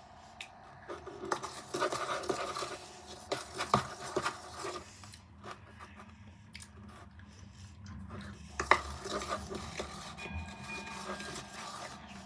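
A hard lollipop being licked, sucked and handled: soft rubbing and scraping, broken by a few sharp clicks of the candy against teeth or its packaging.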